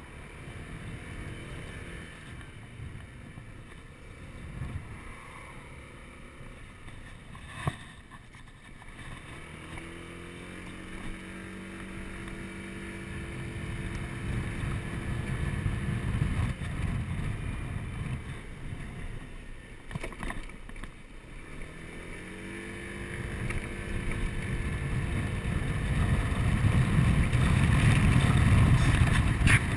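Honda Forza 125 scooter's single-cylinder engine pulling away twice, its pitch rising and then holding steady as the automatic transmission takes up the speed. Wind rushes over the microphone and grows louder toward the end, with a brief knock about eight seconds in.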